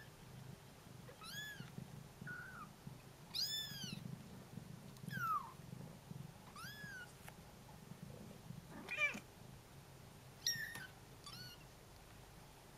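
Young Bengal kittens mewing for their mother: about eight thin, high, arched mews, one after another at irregular gaps, the loudest about nine seconds in.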